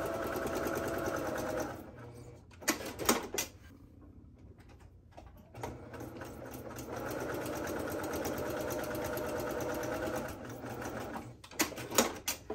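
Electric sewing machine stitching steadily, topstitching an eighth inch either side of a seam through interfaced cotton. It stops about two seconds in, a few sharp clicks follow, then it runs again for about five seconds before another cluster of clicks near the end.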